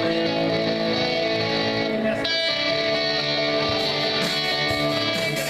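Electric guitar strumming and letting full chords ring out, with a new chord struck about two seconds in.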